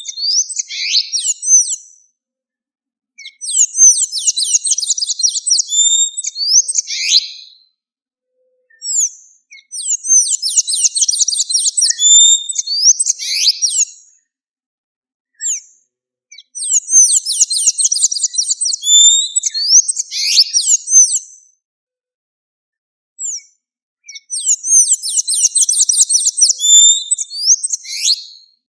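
Blue-gray tanager (sanhaço-da-amazônia) singing: repeated phrases of rapid, high, squeaky twittering notes, each lasting a few seconds, with short pauses between them.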